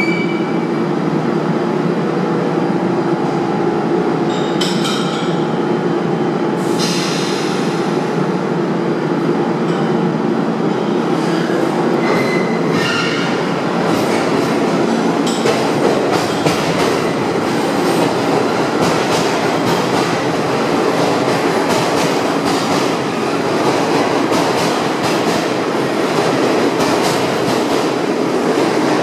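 R46 subway train rolling slowly into the station: a steady rumble of wheels on rail, with a few brief high wheel squeals in the first half.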